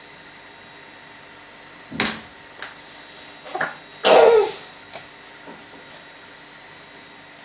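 Baby fussing with a few short whimpering cries, the loudest about four seconds in.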